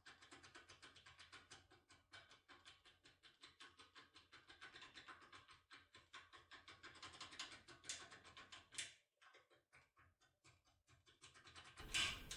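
Faint, rapid metallic clicking and scraping of a foil impression tool being worked back and forth inside an AGB Genio lock cylinder, several clicks a second. The clicks thin out about three-quarters of the way through, with one louder click near the end.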